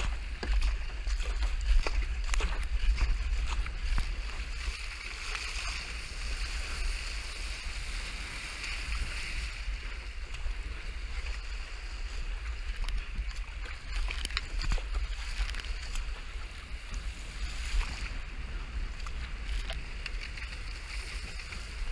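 Wind buffeting the camera microphone as a steady low rumble, over the hiss of choppy sea water rushing past a surfski hull, with scattered splashes and knocks from paddle strokes and chop.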